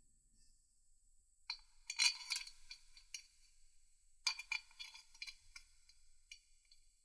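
Small steel bolts and washers clinking against each other and the cylinder head as they are handled and set into the head's bolt holes, in two short bursts of rattling clinks.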